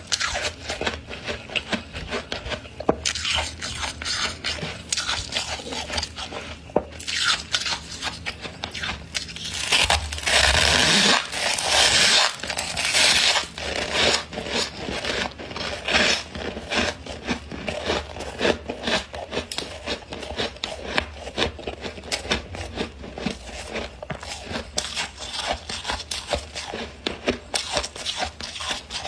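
Metal spoon scraping and crunching through thick freezer frost in many short crackling strokes, with a longer, louder run of scraping around the middle.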